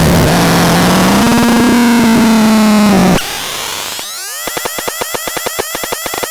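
ABSURDON X1 BAX BOX electronic noise box making a harsh, noisy drone over a low tone that rises slightly, cut off abruptly about three seconds in. About a second later it starts a fast pulsing pattern of chirping, sweeping tones, roughly eight pulses a second.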